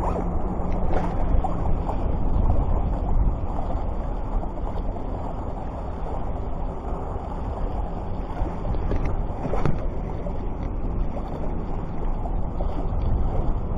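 Wind rumbling on the microphone over the wash of the sea, a steady noise heaviest in the low end, with a couple of faint clicks.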